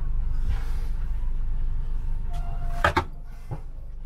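Steady low hum inside a stationary sleeper-train compartment. About three seconds in there is a sharp knock, after which the hum falls to a lower level, and a smaller click follows.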